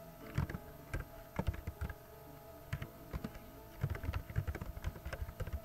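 Typing on a computer keyboard: irregular runs of keystrokes with a brief pause about two seconds in, over a faint steady hum.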